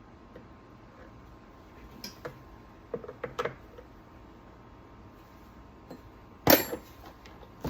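Scattered clicks and clinks of chainsaw parts and tools being handled, with a louder knock about six and a half seconds in and another near the end.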